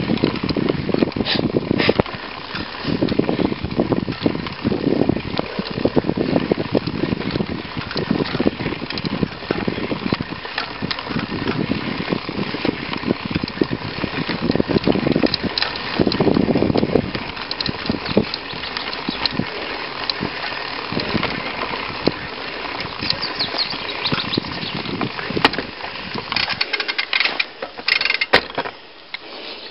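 Mountain bike rolling fast over a gravel forest track, heard from a camera on the front fork: wind buffeting the microphone over the crunch of knobbly tyres, with frequent clicks and rattles over bumps. The low rumble drops away near the end.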